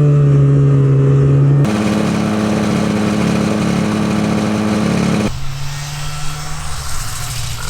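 1980 Polaris Gemini snowmobile's two-stroke engine running at a steady speed. Its pitch jumps abruptly twice, and in the last few seconds the engine is quieter under a rushing noise.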